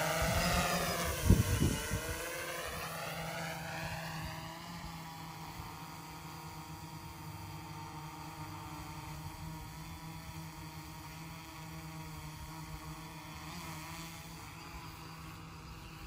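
Quadcopter drone's motors and propellers buzzing in flight. About a second in the pitch dips and climbs back, with a sharp thump. The pitch then holds steady while the sound slowly fades.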